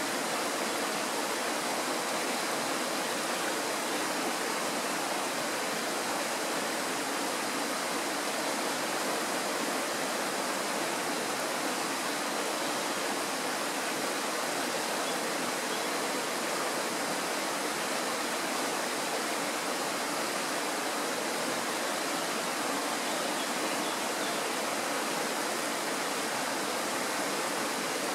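Kirowa Woda mountain stream flowing: a steady, even noise of running water that does not change in level.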